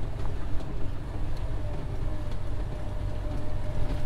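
Semi truck's diesel engine running with a steady low drone as the truck drives across a gravel yard, heard from inside the cab, with a faint steady whine coming in about a second and a half in.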